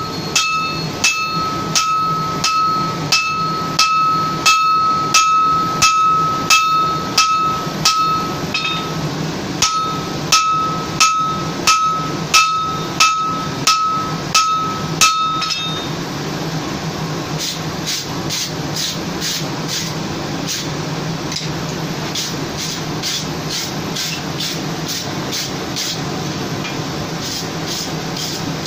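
Blacksmith's hand hammer striking red-hot steel on an anvil, about two blows a second, each leaving the anvil ringing, while the axe pieces are forge-welded together. About halfway through the ring stops and the blows turn quicker and duller, over a steady low hum.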